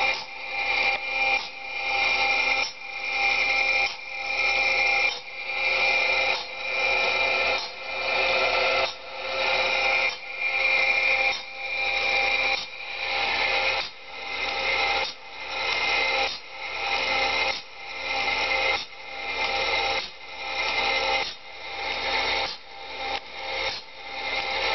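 Automatic band saw blade sharpening machine grinding the blade tooth by tooth. The grinding rasp swells and cuts off about once a second, in an even rhythm, over a steady machine whine.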